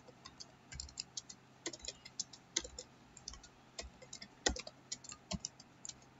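Computer keyboard keys being typed, an irregular run of faint clicks with one sharper keystroke a little past the middle.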